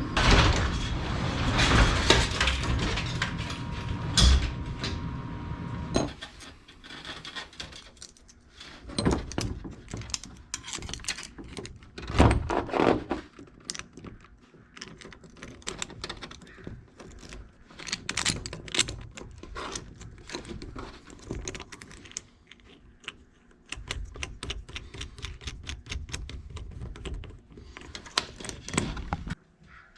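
Metal hardware clinking and clanking irregularly as a garage door extension spring and its hooks and fittings are handled and hung back in place. A steady hum with a held tone runs under the first six seconds and cuts off sharply.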